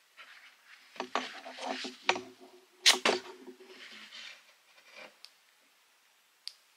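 Handling noise: a plastic shoulder clip on a weapon light scraping and sliding off a nylon webbing strap. There are two sharp clicks about three seconds in, and a single small click near the end.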